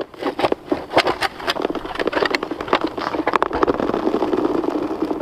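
Ice auger boring into fresh lake ice: dense, irregular crunching and crackling over a steady grinding.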